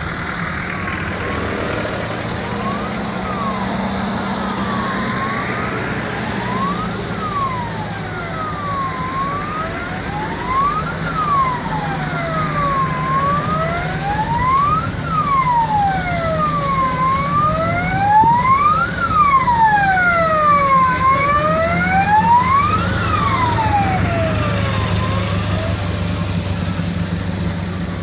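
A siren wails, rising and falling about once every four seconds, growing louder toward the middle and then fading. Under it runs the steady low running of a slow column of military jeep engines.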